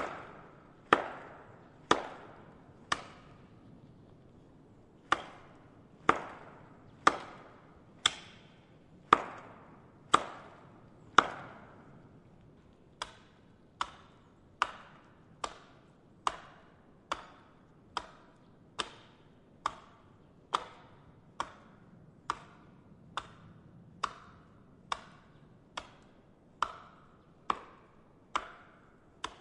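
Axe chopping wood: a steady run of sharp strikes, each with a short ringing decay, about one a second. About halfway through the strikes come a little quicker and softer.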